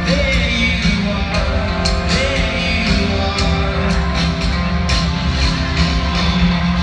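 Live pop-rock band through a stadium PA, heard from high in the stands: steady drum beat, bass and guitar under a male lead vocal.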